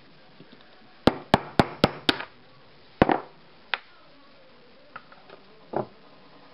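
Hammer striking a steel axle set in a scooter wheel's metal core to knock out a bearing: five quick blows, about four a second, then two more single strikes about a second apart. Near the end, a few light clicks and a soft knock as the parts are handled.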